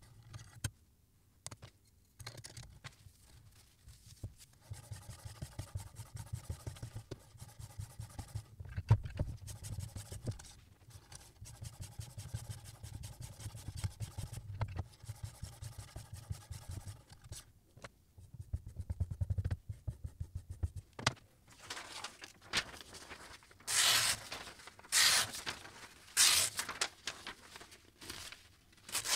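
The abrasive on the guided arm of a Sy Tools S09 knife sharpener is stroked back and forth along a chef's knife edge in many short, repeated passes. Near the end, the freshly sharpened blade slices a sheet of paper in several quick cuts about a second apart: a sharpness test.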